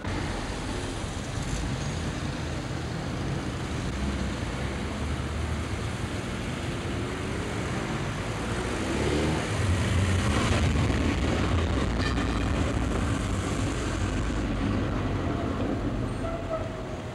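City street traffic noise: a steady rumble of passing cars, with one car engine rising in pitch as it accelerates about nine seconds in, after which the traffic stays louder for a few seconds.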